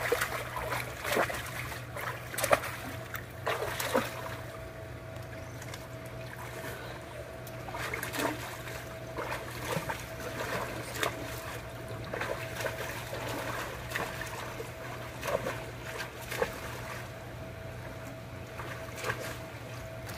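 Swimmer's arm strokes and kicks splashing in a swimming pool, with water lapping; the splashes come irregularly, thickest in the first few seconds. A steady low hum runs underneath.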